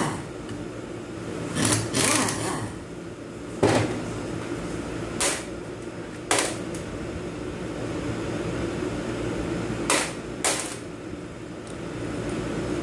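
Short bursts from a pneumatic ratchet and sharp metallic clacks as the valve body bolts on an automatic transmission are undone and handled: about seven separate sounds with gaps between them, over a steady low hum.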